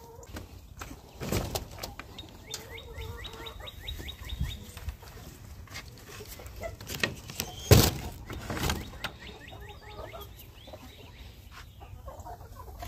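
Faint clucks and chirps from a flock of chickens, with a few scattered knocks and thumps, the loudest about eight seconds in.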